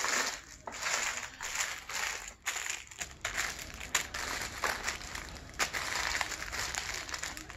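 Wrapped candy being pawed through and sorted by hand: plastic wrappers crinkling and rustling, with many sharp crackles.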